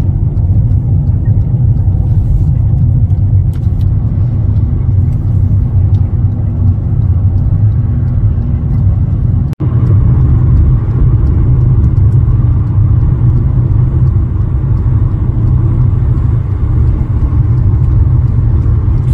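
Steady low rumble of road and engine noise heard inside a moving car's cabin at highway speed. It drops out for an instant about ten seconds in, where the recording cuts.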